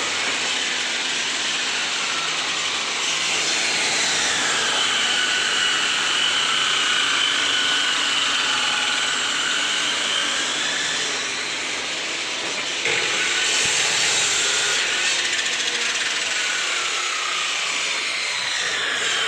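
A woodworking power tool running and cutting wood, its whine dipping and rising in pitch as the load on it changes.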